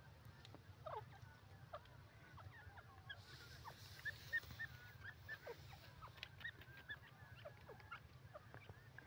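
Faint, scattered short bird chirps and calls, with a quick run of short notes about four to five seconds in, over a faint low background rumble.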